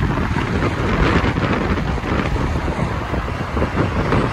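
Wind blowing hard across the microphone, a dense low rumble, with road traffic underneath.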